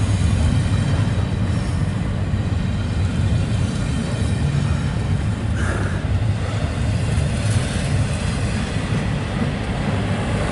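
Double-stack intermodal freight train's loaded well cars rolling past close by: a steady heavy rumble of steel wheels on rail, with a brief sharper noise a little past halfway.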